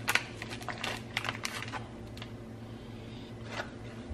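Kitchen handling sounds off camera: a quick run of small clicks and taps in the first couple of seconds, then a few scattered taps over a steady low hum.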